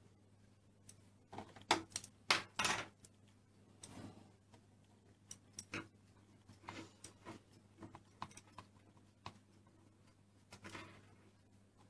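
Plastic Play-Doh toy pieces being handled on a table: scattered clicks, taps and short rustles, loudest about two seconds in.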